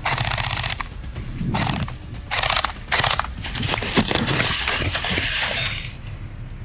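Footsteps crunching and rustling through dry leaves and brush, in uneven stretches of a second or more.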